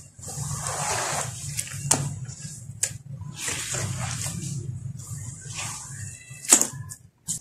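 Hands sloshing and swishing through a tub of watery sand-cement slurry in several strokes, with sharp splashes; the loudest splash comes about six and a half seconds in.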